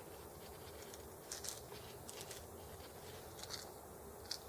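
Faint, scattered small clicks and taps as a battery holder is fitted back into a model engine.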